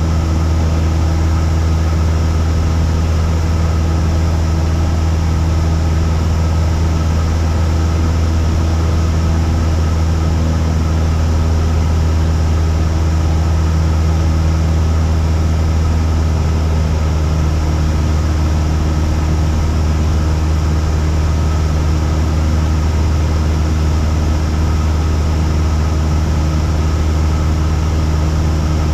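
Cessna 172's piston engine and propeller droning steadily, heard from inside the cabin. One of its tones shifts slightly about two-thirds of the way through.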